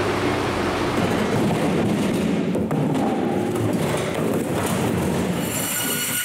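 Loud, steady mechanical din with a few knocks, then about five seconds in the high whine of a band saw sets in as it starts on a frozen tuna.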